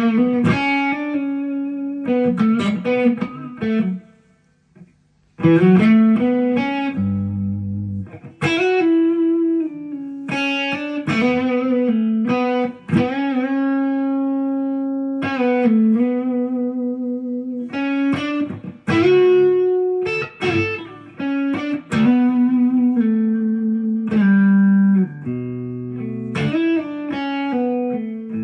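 Epiphone Les Paul Custom electric guitar being played: plucked chords and ringing single notes, with one short pause about four seconds in.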